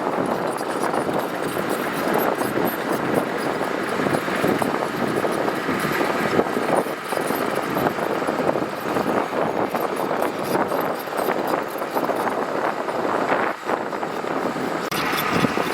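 Heavy diesel earthmoving machinery working gravel: a steady engine drone mixed with the grinding and sliding of loose gravel.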